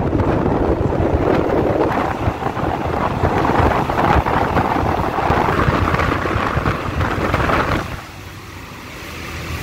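Wind buffeting the microphone over the running rumble of a moving passenger train, heard from an open carriage doorway. About eight seconds in, the wind noise drops sharply as the microphone comes into the shelter of the doorway.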